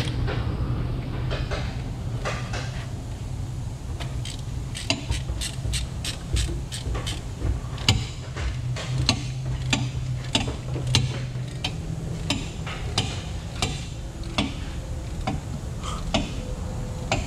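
Hand tool clicking and clinking on metal while loosening the drive shaft bolts of a 1992 Suzuki Every 4x4. From about four seconds in there is a run of sharp clicks, about two to three a second, over a steady low hum.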